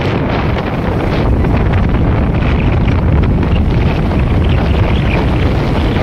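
Heavy wind buffeting on the microphone with the steady rumble of a vehicle moving along a road.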